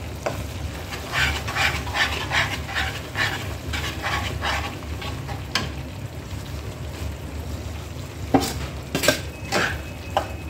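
A spatula stirring and scraping in a pan as chana dal is worked into hot one-thread sugar syrup, in quick repeated strokes, with a few sharper scrapes or knocks near the end. A steady low hum runs underneath.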